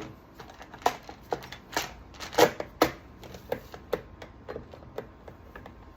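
Hands working on a chainsaw's engine parts: a run of irregular light clicks and knocks, the loudest about two and a half seconds in.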